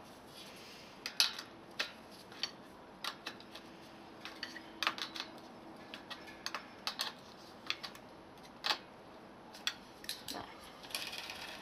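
Irregular sharp metallic clicks and ticks from handling the spokes of a bicycle rear wheel. There are a couple of dozen scattered clicks, and some come in quick pairs.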